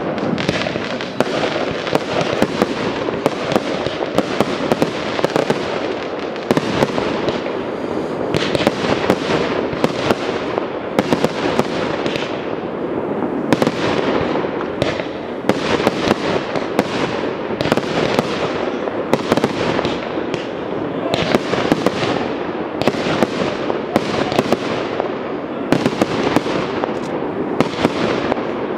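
Fireworks display: aerial shells bursting in quick succession, a sharp bang every second or so, sometimes two close together, over a steady continuous din.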